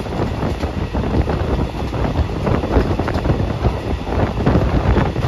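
Passenger train running: a steady rumble from the carriage, with wind buffeting the microphone.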